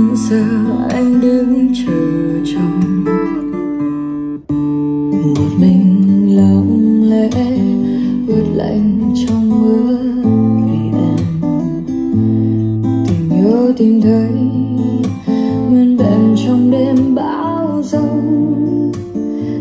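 Instrumental passage of a Vietnamese pop ballad led by acoustic guitar, played back through a speaker under test.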